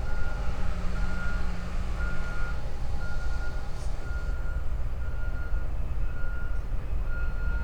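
Reversing alarm beeping about once a second, one steady pitch, over the low, continuous running of a heavy diesel machine.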